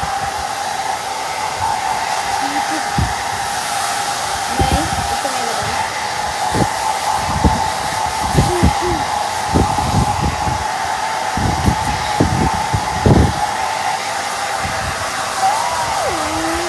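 Handheld hair dryer running steadily on its cool setting, a constant motor whine over the rush of air, with irregular gusts of its airflow buffeting the microphone, most often in the middle of the stretch.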